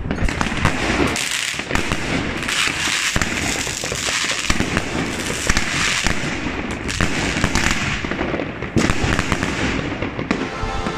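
A 16-shot consumer fireworks cake firing shot after shot: sharp launch and burst reports mixed with a dense crackle of many small pops as the stars break. The firing stops shortly before the end, where electronic music begins.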